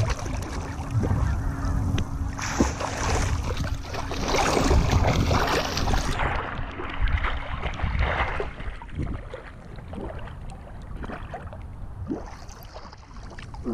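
Water splashing and churning from a swimmer's strokes, heard with the camera at the water's surface. The splashing is loudest for about the first eight seconds, then turns quieter and more broken.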